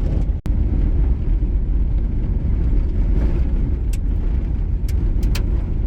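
Suzuki Grand Vitara driving slowly over a dirt road, heard from inside: a steady low rumble of engine and tyres, with a brief drop-out about half a second in and a few short ticks in the second half.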